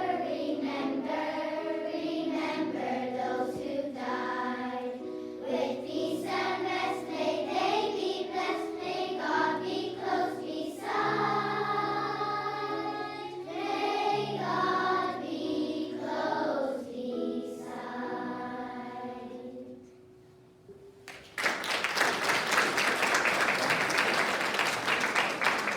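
A children's choir singing a song with instrumental accompaniment; the song ends about 20 seconds in. About a second later an audience breaks into applause that lasts to the end.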